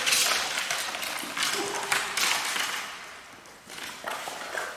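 Hooked carp thrashing and splashing at the water's surface as it is played in. The splashing is busiest in the first two seconds or so, then dies down, with a couple of smaller splashes near the end.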